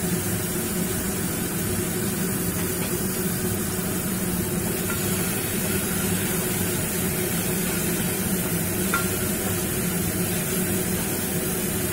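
Onion-tomato masala paste sizzling in mustard oil in an aluminium pot while a spatula stirs and scrapes it, a steady hiss over a low hum. This is the kosha stage, where the spice paste is fried down with turmeric over a lowered gas flame.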